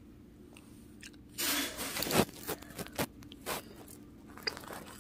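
Close-up chewing and crunching of a mouthful of fruit salad sprinkled with Takis powder. It starts about a second and a half in, with a few sharp clicks among the shorter crunches.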